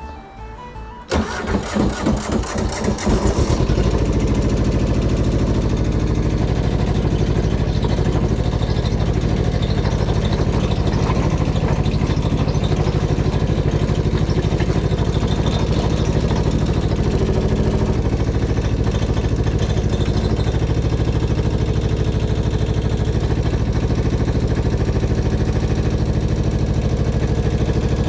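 Mini excavator's diesel engine being started: the starter cranks for about two seconds, then the engine catches and settles into a steady idle.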